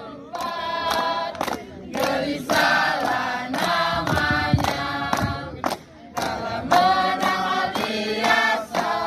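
A group of young students singing together as a choir, in phrases of held notes separated by short breaks.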